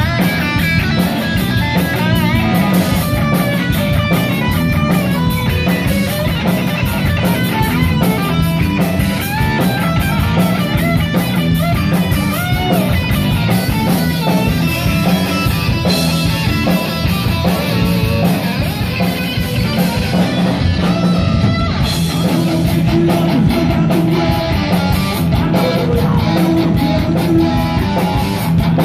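Heavy metal band playing loud, live: electric guitar, bass guitar and drum kit, with guitar lines that waver and bend in pitch over the band.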